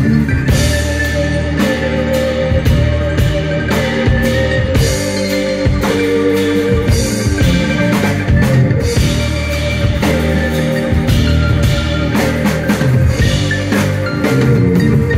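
Live rock band playing an instrumental passage: electric bass, mandolin, electric guitar and drum kit, loud and steady, with frequent drum hits.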